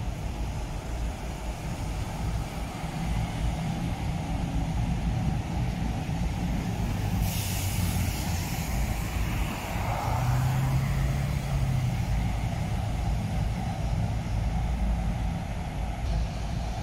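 Diesel city buses running as they pull past at a bus interchange, with a steady low engine rumble. About seven seconds in there is a short, sharp burst of air-brake hiss. A little later a bus's engine hum grows stronger for a second or two.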